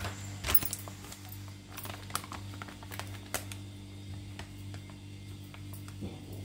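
Plastic spice packet crinkling, with light taps and clicks, as fish fry masala powder is shaken out of it into a bowl, over a steady low hum.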